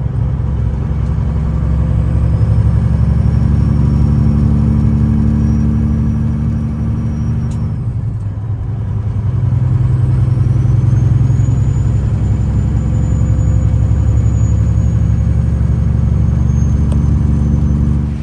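Semi-truck diesel engine running steadily under way. The engine note eases off about eight seconds in, then builds again with a faint rising high whine.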